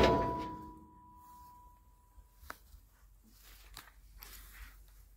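Steel hood of an old Ford truck slammed shut, the bang fading as the sheet metal rings on for about two seconds. A single small click comes a little later, then only faint handling noise.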